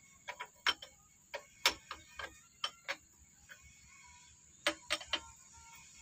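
Sharp metallic clicks and taps, about a dozen at uneven spacing with a pause midway, as hand tools work the fittings on a diesel engine's in-line fuel-injection pump.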